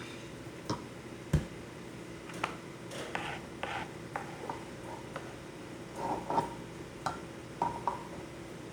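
Scattered light knocks and clicks of kitchen utensils and dishes being handled, with one sharper knock about a second and a half in.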